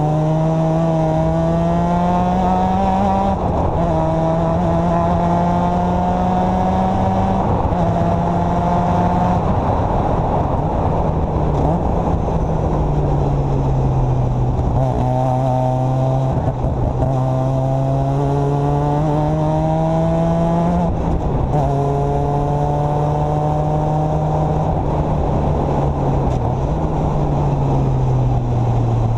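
Formula Mazda's 13B rotary engine heard from the cockpit at full race pace, its pitch climbing under acceleration and dropping sharply at each upshift, then falling away as the car slows for corners. Wind and road noise rush underneath.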